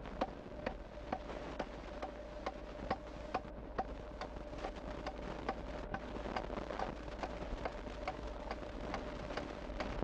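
Hand adze chopping into the wooden helmet of a mask being hollowed out, sharp even strokes about twice a second, over a constant hum.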